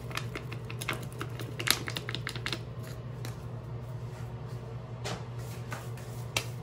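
Crinkling of a bleach powder packet as it is shaken out over a bowl: a quick run of small crackles over the first two and a half seconds, then a few separate clicks as it is set aside.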